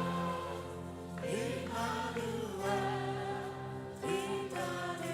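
Live gospel worship song with a choir singing long held notes, new sung phrases coming in about a second in and again near the end.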